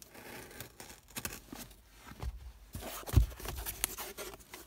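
A knife blade cutting and scraping through packing tape on a cardboard box, with rustling and clicking of the cardboard and a dull knock about three seconds in.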